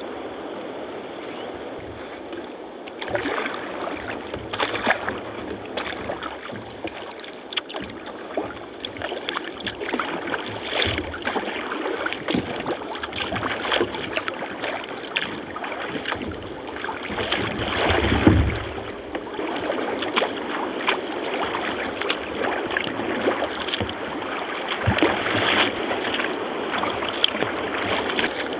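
Water splashing and lapping against a sea kayak's hull as it is paddled through choppy sea, with irregular paddle splashes and one louder surge about two-thirds of the way in.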